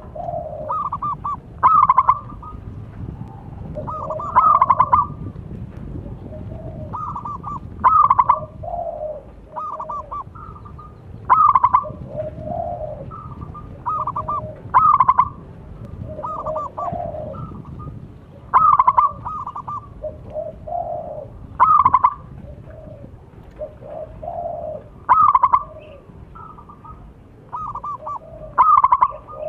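Zebra dove (perkutut) cooing its song. The same phrase of quick staccato coos repeats about every three and a half seconds, roughly nine times.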